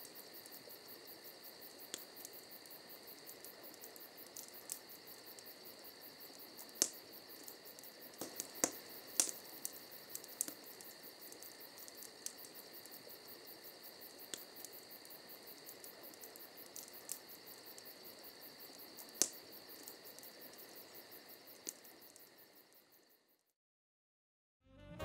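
Crickets chirping steadily, with scattered sharp crackles and pops from a fire. The sound fades out near the end.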